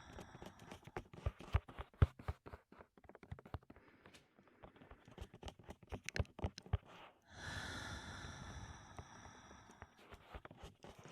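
Fingertips tapping directly on a microphone in quick, irregular taps, then one long heavy breath close into the microphone about seven seconds in, and a few more taps near the end.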